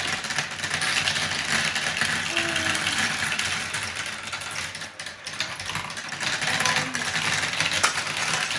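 Many marbles clattering and rattling continuously down the plastic tracks of a Marble Genius marble run, a rapid dense stream of small clicks that eases briefly about midway.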